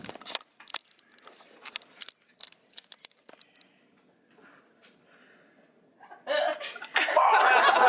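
Hushed room with small scattered clicks of movement and stifled snickering, then, about six seconds in, a sudden loud outburst of voices shouting and laughing.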